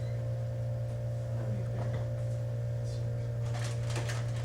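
A steady low hum with a fainter, higher steady tone above it, and a few short clicking or rustling noises about three and a half to four seconds in.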